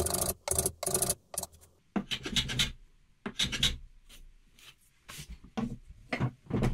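A small hand plane cutting a wooden block, each stroke a short rasping hiss of the shaving coming off. Several quick strokes come first, then a few longer ones, then lighter, shorter strokes near the end.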